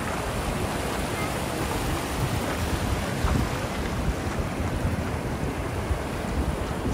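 Ocean surf washing steadily onto the beach, with wind buffeting the microphone in the low end.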